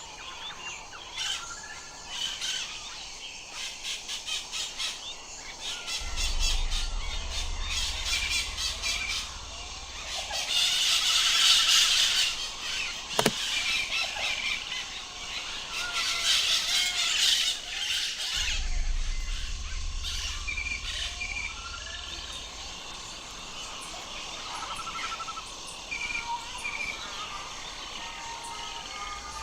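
Parrots screeching and squawking, with shorter chirps and whistles in between. The loudest, harshest screeches come about ten seconds in and again about sixteen seconds in.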